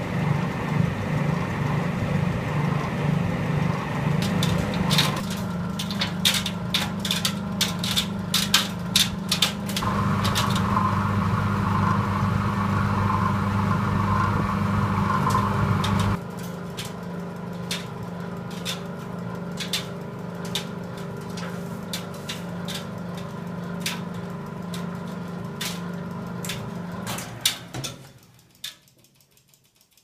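Vintage New World tumble dryer running: a steady motor hum with the clothes knocking and clicking in the turning drum. The hum grows louder about ten seconds in and drops back about six seconds later. Near the end the machine runs down and stops.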